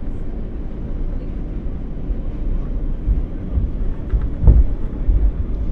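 New York City Q subway train running, heard from inside the car: a steady low rumble, with a few heavy thumps in the second half as the wheels pass over the track.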